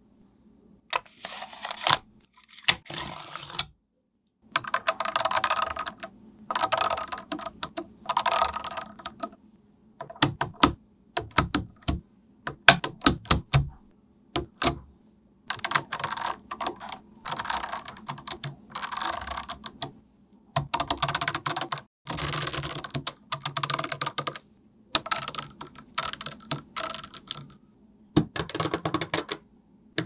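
Small magnetic balls clicking and clattering as they snap together and are pressed into place, in dense runs of rapid clicks with short pauses between them and a spell of separate single snaps about halfway through.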